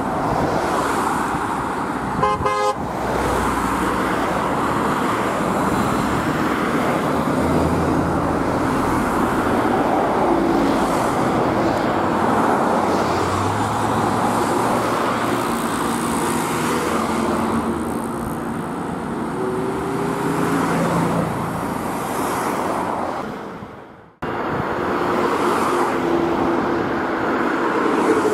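Steady road traffic noise of cars driving, with a short vehicle horn blast about two and a half seconds in and a few fainter brief tones later.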